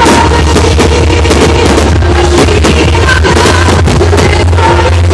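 Loud music with singing plays throughout, with fireworks shells bursting over it.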